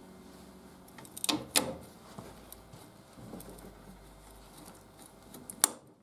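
A few light metal clicks and knocks from handling a motorcycle rear shock absorber on its mount: two close together about a second and a half in and one near the end, over faint workshop quiet.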